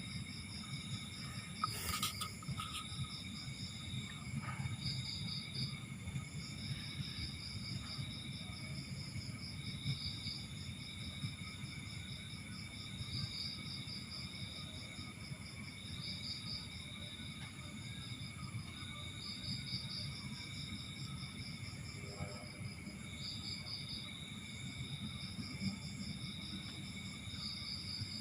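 Background insects chirping continuously in high, pulsing trills over a low hum, with one sharp click about two seconds in.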